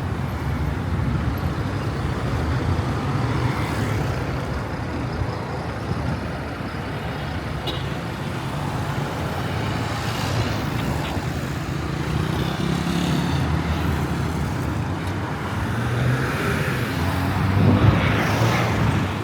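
City street traffic: cars and other vehicles running past in a steady rumble, with one passing close and loudest near the end.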